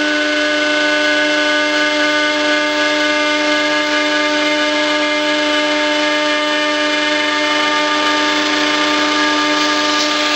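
Power tool running steadily while working aluminum: a continuous whine with several steady pitches over a rushing hiss, unchanged in speed throughout.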